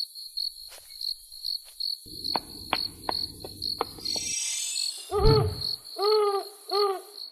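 Crickets chirping steadily, about two to three chirps a second. About four seconds in comes a brief shimmer of high tones. Then a low thud and three owl hoots, each rising and falling.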